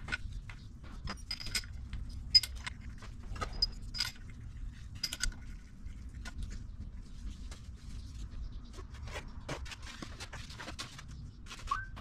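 Small steel parts clinking and tapping against a Detroit Diesel 2-53 cylinder head as valve-train pieces are handled and fitted: irregular sharp clicks, a few with a brief high ring, over a low steady hum.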